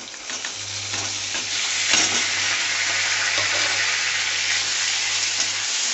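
Marinated chicken pieces going into hot refined oil in a kadai and frying: a sizzle that starts suddenly, builds over the first second and then holds steady, with a metal spatula scraping and stirring in the pan.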